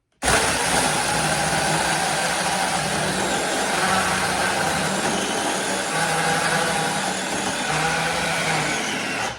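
Samyoung 26 V 4-inch cordless electric mini chainsaw cutting through a pressure-treated 4x4 post: the motor and chain run loudly and steadily, starting suddenly and stopping suddenly near the end. The motor's note drops and recovers a few times as the chain bites into the wood.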